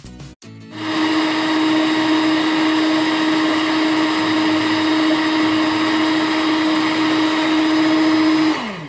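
Electric stand mixer running at a steady pitch, its beaters whipping egg whites and sugar into meringue. Near the end it is switched off and the motor winds down with a falling pitch.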